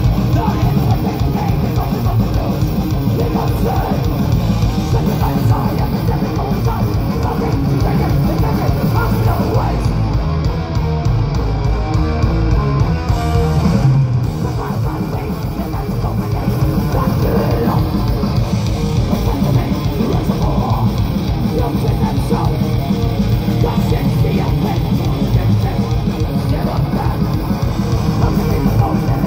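Live thrash metal band playing at full volume: heavily distorted electric guitars, bass guitar and a pounding drum kit.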